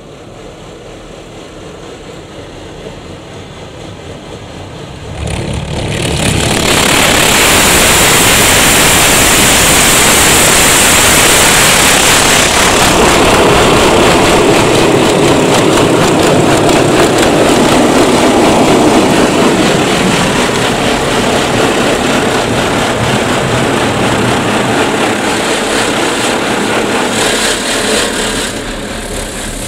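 Touchless car wash's high-pressure water jets spraying against the car, heard from inside the cabin: a rushing hiss that grows over the first few seconds, turns suddenly loud about five seconds in, holds steady, and drops near the end.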